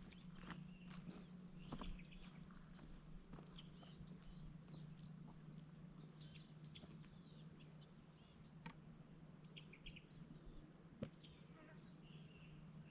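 Faint birds chirping: many quick, high chirps and short trills, close together throughout.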